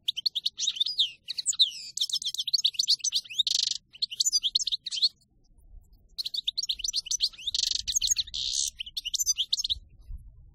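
European goldfinch singing its wild-type 'campero' song: fast, high twittering phrases broken by short buzzy notes. It sings in two long bouts with a pause of about a second between them, and the second bout stops shortly before the end.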